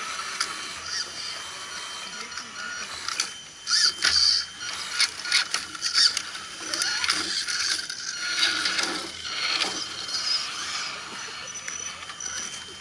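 Scale RC crawler trucks' electric motors and geared drivetrains running at crawling speed as they climb a rock ledge, the whine rising and falling. Clicks and knocks come as tyres and chassis hit the rock, loudest about four to six seconds in.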